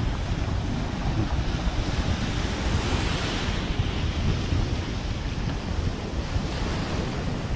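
Gulf surf washing onto the beach, with wind buffeting the microphone as a low rumble. One wave swells a little louder about three seconds in.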